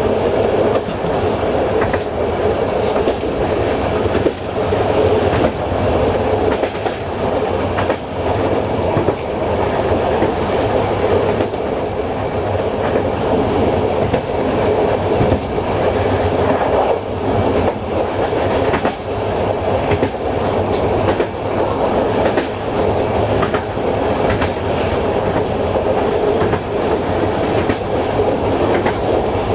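A passenger coach running at speed on the rails, heard at the rear of the train: a steady rolling rumble of the wheels on the track, with scattered clicks and knocks from the wheels and running gear.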